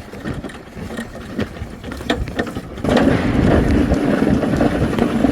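An old push mower being dragged along, its wheels and deck rattling and scraping. Scattered clicks and knocks at first, then a louder, continuous rumbling scrape from about three seconds in.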